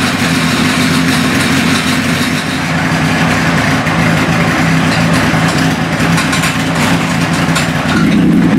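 Kawasaki ZX-7R 750 cc carburetted inline-four running steadily at a fast idle on choke, freshly started cold after standing for ten months. It gets a little louder about eight seconds in.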